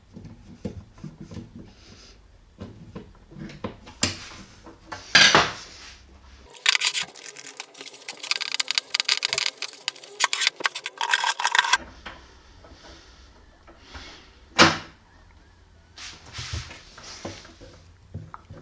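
Hands-on repair work on a wooden cabinet: scattered knocks and clicks of parts and tools being handled, with a dense run of rapid clicking and rattling about six seconds in that lasts about five seconds, and a sharp knock near the end.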